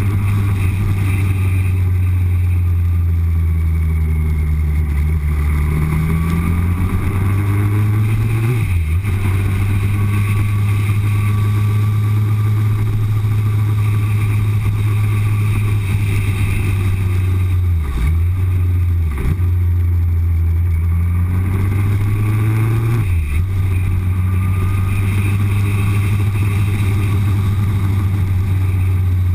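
Yamaha R1 sport bike's inline-four engine running under way, heard from a bike-mounted camera: a steady low engine note that climbs in pitch under throttle, then drops sharply and picks up again several times.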